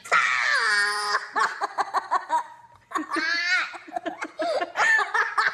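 Young child laughing hard: a long shriek of laughter falling in pitch at the start, then quick bursts of giggling, a high squeal about three seconds in, and more rapid giggles.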